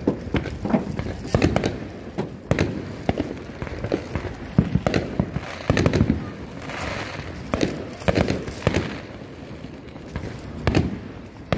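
Fireworks going off outdoors: an irregular string of sharp bangs and pops, often several a second.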